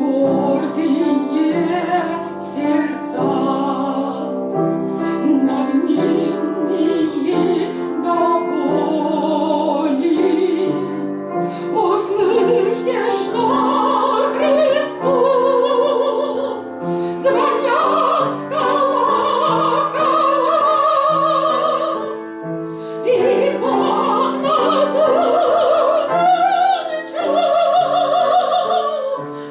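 A woman singing a slow song in a classical, operatic style with wide vibrato, over piano accompaniment. The melody climbs to higher, held notes from about twelve seconds in, with a short breath between phrases a little past the twenty-second mark.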